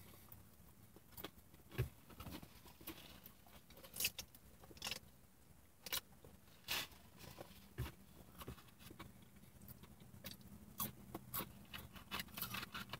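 Faint, scattered clicks and rustles of eating: chewing tater rounds and handling a paper food sleeve and a drink cup, with a cluster of rustles near the end.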